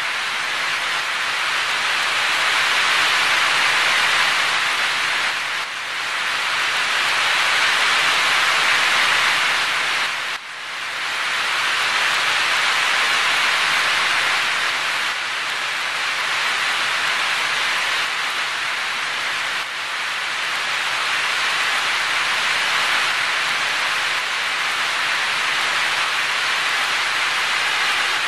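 Heavy rain falling and splashing onto a wet surface, a steady dense hiss that dips briefly twice, about 6 and 10 seconds in.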